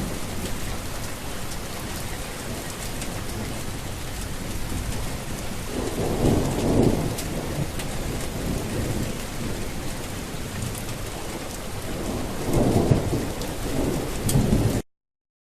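Steady heavy rain with two rolls of thunder, about six seconds in and again near the end; the sound cuts off suddenly just before the end.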